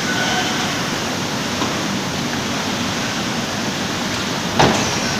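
Steady noise of a bottled-water packing line running: conveyors and the carton packing machine, with one sharp clack about four and a half seconds in.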